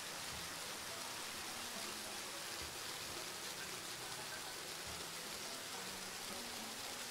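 Animated sound effect of water spraying from a hose nozzle onto a toy-like tractor, a steady hiss.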